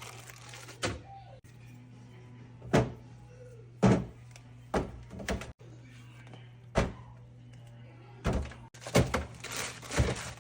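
Containers being set down and moved around in a refrigerator: a series of sharp knocks and thunks, about ten, irregularly spaced, with several in quick succession near the end.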